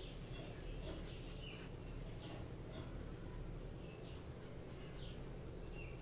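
A paintbrush stroking thick paint onto paper, a soft scratchy brushing repeated several times a second.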